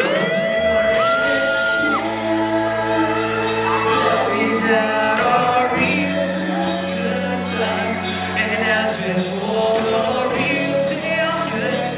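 Live music: a man singing into a microphone over long held low keyboard notes.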